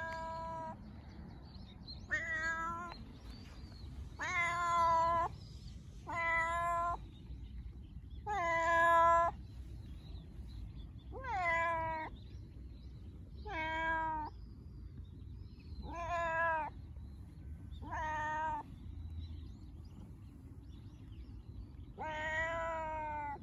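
A domestic cat meowing again and again, about ten meows of under a second each, roughly one every two seconds. These are the happy, friendly meows of a cat seeking affection.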